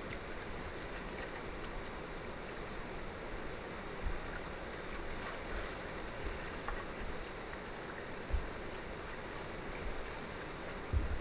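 Steady rushing of whitewater river rapids, heard close to the water surface, with a few brief low thumps.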